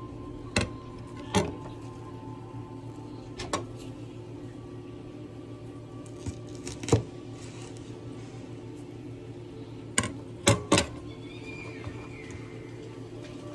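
Handling noise from a phone rubbing and knocking against clothing: a handful of sharp scuffs and knocks, the loudest about seven seconds in and a quick cluster around ten to eleven seconds in, over a steady low hum.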